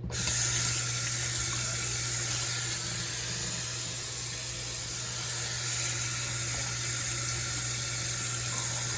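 Kitchen faucet running full into the sink, a steady rushing of water that turns on abruptly.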